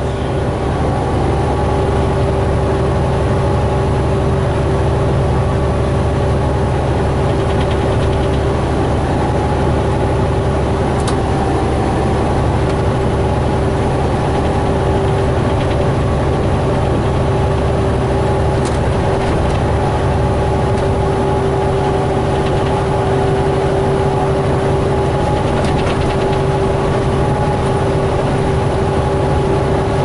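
Inside a semi-truck cab at road speed: the diesel engine's steady drone and road noise, with a constant hum over it. A few faint single ticks are heard now and then.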